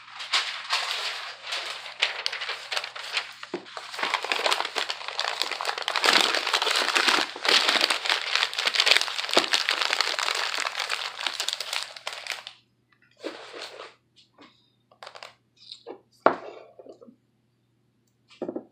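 Packing paper crinkling and rustling as small items are wrapped, continuous for about twelve seconds, then a few short separate rustles and a knock.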